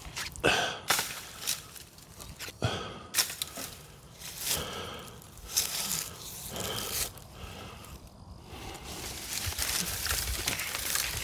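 Irregular rustling, crackling and snapping of brush and branches being handled, with no chainsaw running.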